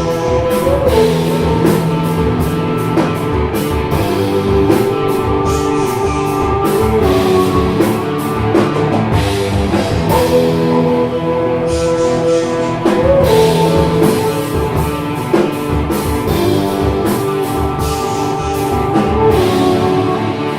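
Rock band playing a song, with held guitar notes over steady drum hits.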